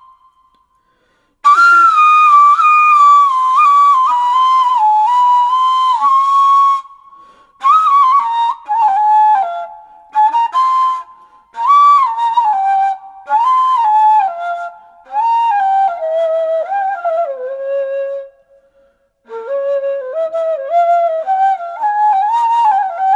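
Background music: a solo flute-like woodwind melody, starting about a second and a half in and playing in short phrases broken by brief pauses. The line drifts down in pitch toward the end before climbing again.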